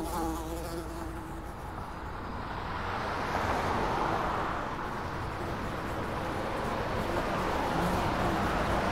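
Flies buzzing, growing louder from about two seconds in and then holding steady.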